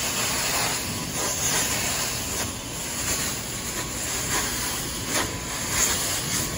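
Hot-water extraction carpet-cleaning wand spraying hot water into carpet and vacuuming it back up, a steady, loud hissing rush of suction.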